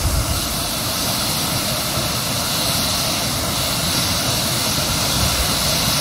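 The 34-metre Leuenfall waterfall pouring down a rock face and crashing into its plunge pool: a loud, steady rush of falling water in strong flow.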